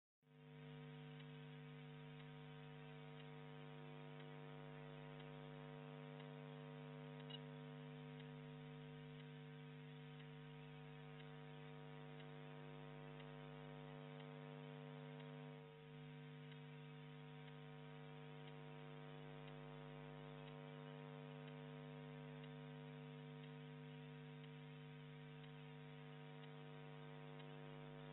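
Faint, steady electrical hum: a low buzzing tone with a stack of higher overtones, dipping briefly about sixteen seconds in.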